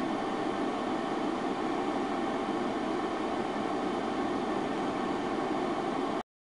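Steady, even background noise, a constant rushing hiss with no events in it, that cuts off abruptly into silence near the end.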